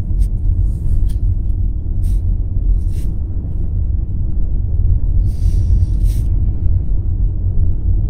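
Car on the move heard from inside the cabin: a steady low rumble of engine and road noise, with a brief hiss about five seconds in.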